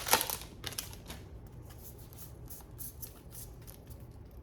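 Trading cards slid and flicked one over another in the hands: a louder rustle at the start, then a run of soft, quick flicks.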